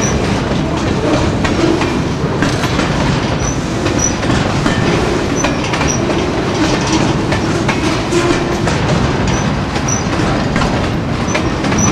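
Loaded flatcars of a freight pipe train rolling steadily past, steel wheels clicking over the rail joints, with a few short high squeaks now and then.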